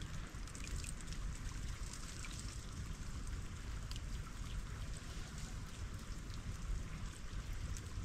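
Melting ice dripping and trickling: many scattered small drips and ticks over a steady low rush of water.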